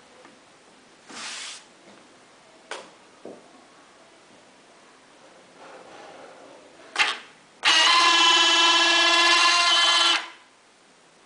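Retractable nose landing gear of a radio-controlled Piper Twin Comanche model extending: its small geared motor gives a loud, steady whine for about two and a half seconds, then stops. A sharp click comes just before, and a few faint clicks and a short hiss come earlier.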